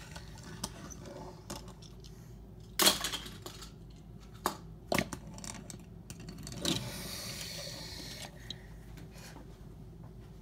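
Small hard objects clinking and clattering, with a few sharp knocks, the loudest about three seconds in, and a brief hiss of noise around seven seconds.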